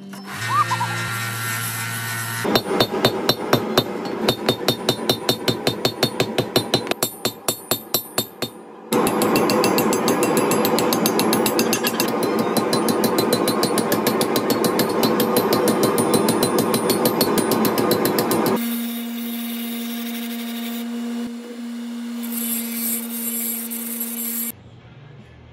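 Hand hammer striking hot rebar on an anvil: a run of ringing blows about three a second, then a faster, denser stretch of hammering. Near the end a power grinder runs with a steady hum.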